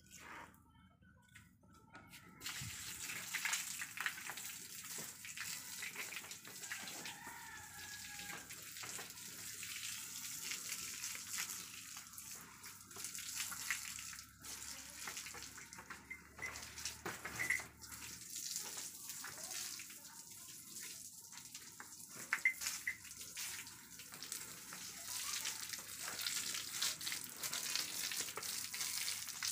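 Water spraying from a hose onto cattle and splashing on the wet floor: a steady hiss that starts about two and a half seconds in, with irregular splashes throughout.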